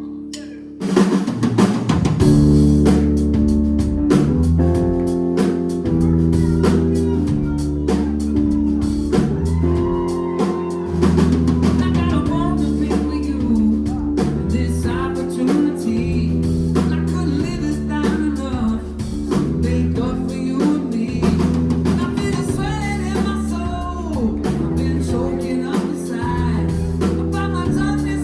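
Live band playing: drum kit, bass and guitar come in together about a second in and hold a steady groove, with singing over it.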